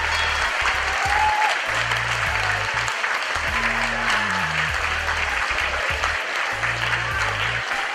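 Boxing crowd applauding a fight just stopped by TKO, over background music with a low bass line that steps between a few held notes.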